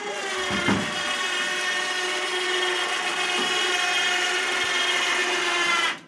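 Electric boat winch motor running steadily under load, winding in its cable as it tips a drift boat up on end on its trailer. It is a steady whine that cuts off suddenly near the end.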